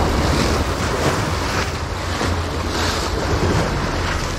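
Small waves breaking and washing over jetty rocks in repeated surges, with wind buffeting the microphone.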